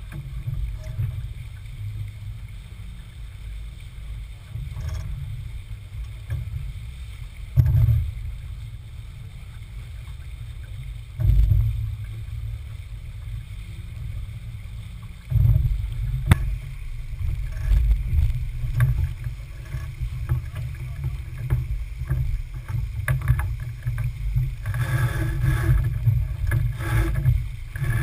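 Wind rumbling on the microphone and water rushing along the hull of a Smaragd keelboat under sail, surging with the gusts, with a few sharp knocks. Near the end come several sharper clattering sounds.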